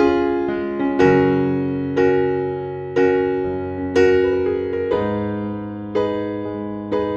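Background music: a piano-type keyboard playing chords, a new chord struck about once a second, each fading away before the next.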